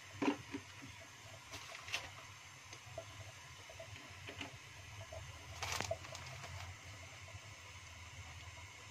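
A quiet stove-top scene: oil heating in a non-stick wok, with a low steady hum, a few faint scattered ticks, and one louder brief clatter about six seconds in.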